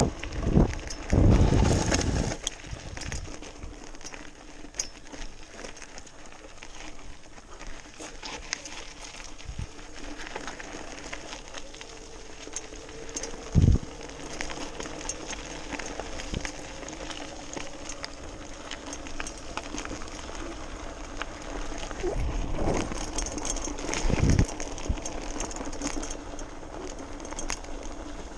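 Electric BMX bike riding fast over a gravel trail: a steady crunching rush of tyres on loose gravel with a faint steady hum, broken by a few heavy thumps as the bike hits bumps.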